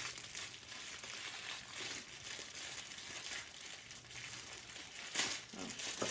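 Packing material crinkling and rustling as a small purse is handled, with a louder rustle about five seconds in.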